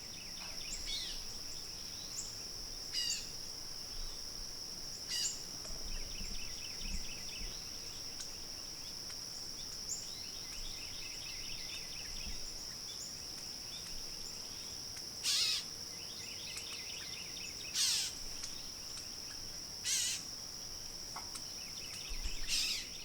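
Insects, crickets or similar, droning steadily on one high pitch, with scattered bird chirps and a few louder short bird calls.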